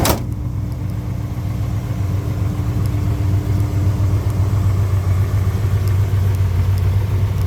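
A 1979 Chevrolet El Camino's 383 stroker small-block V8, breathing through headers and a dual exhaust, idling with a steady low rumble.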